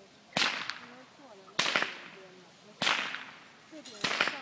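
Heavy exercise whip weighted with a length of chain cracked four times at a steady pace, about one crack every 1.2 seconds, each sharp crack followed closely by a smaller second snap.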